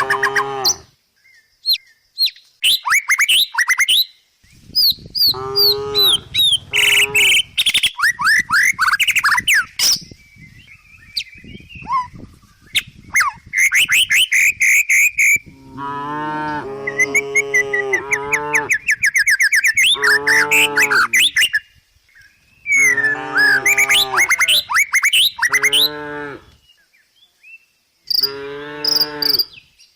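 Cows mooing repeatedly, about six long moos in the second half, some following close on one another. Birds chirp with quick falling calls, mostly in the first half.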